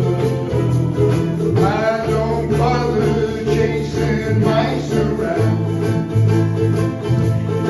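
Ukulele band playing an instrumental passage: strummed ukuleles over a steady bass line, with a lead melody that slides in pitch for a few seconds in the middle.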